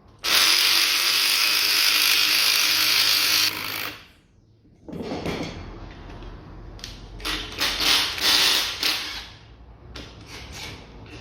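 Spring compressor being tightened on a car's front shock absorber. A hissing power tool runs steadily for about three seconds, then after a short pause come irregular ratcheting clicks and metal rattles.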